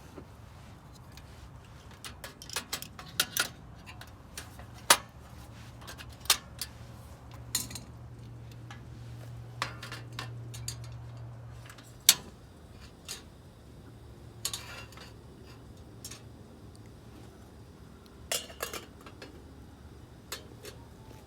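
Scattered clinks, clatters and knocks of small items being handled and set down, over a low steady hum.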